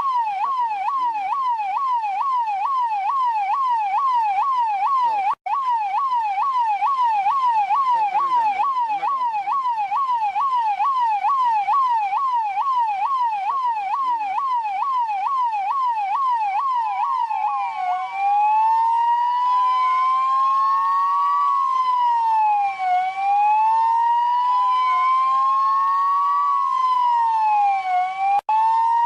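Electronic police siren, of the kind used by Indian and Pakistani police, in a fast yelp: a rising sweep two to three times a second. About 17 seconds in it switches to a slow wail, two overlapping tones rising and falling every few seconds, and it cuts out for an instant twice.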